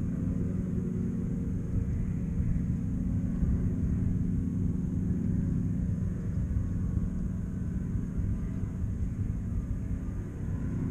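A steady, low engine drone with a rumble beneath it, holding level throughout.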